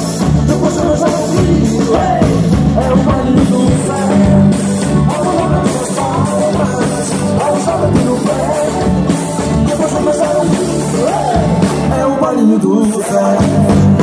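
Live band music, loud through a PA: accordion, electric guitar and drums playing an upbeat dance tune with singing over it.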